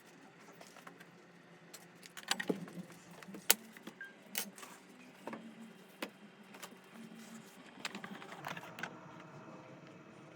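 Scattered light clicks and small clatter of objects being picked up and set down on an electronics repair bench. The sharpest click comes about three and a half seconds in.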